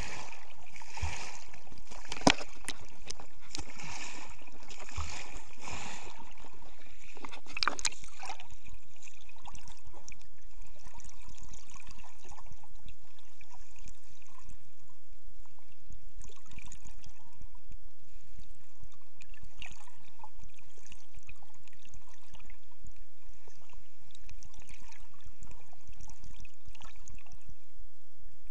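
Underwater sound picked up by a submerged camera: a steady watery hiss with scattered clicks and crackles. For the first several seconds a swishing pulse comes about once a second, and one sharp click sounds a little over two seconds in.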